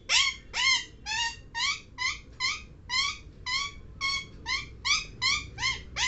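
Ringneck parakeet calling in a rapid run of short, repeated calls, each one hooking up and down in pitch, about two to three a second.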